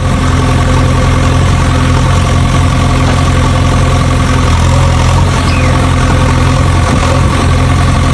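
Engine idling steadily: a low, even hum that does not rise or fall.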